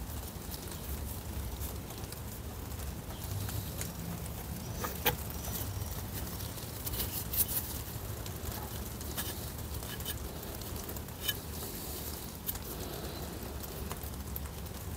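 Scattered light clicks and taps of a clutch release fork and pivot ball being handled, over a low steady hum.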